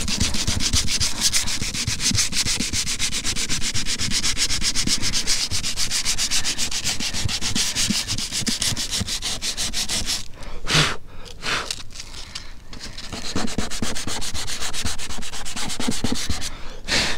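Sandpaper rubbed by hand on a camper van's roof in quick back-and-forth strokes, scuffing the surface so the glue for the solar panel mounts will grip. The sanding breaks off after about ten seconds, with a couple of short rubs, then resumes.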